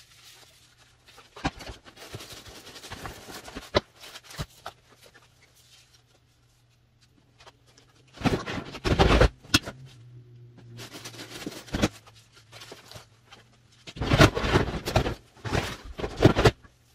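Hard plastic storage totes being pulled off a stack, slid and set down: plastic knocking and scraping on plastic, loudest about eight seconds in and again near the end. A faint steady low hum runs underneath.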